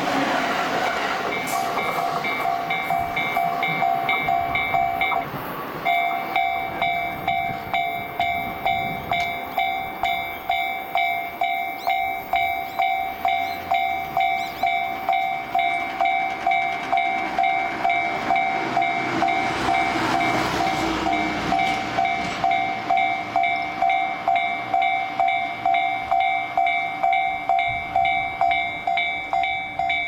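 Electronic level-crossing warning bell ringing in a steady, evenly repeating pattern, the alarm of a crossing held closed for trains. It breaks off briefly about five seconds in, then starts again. At the start an electric commuter train rumbles past with wheel clatter.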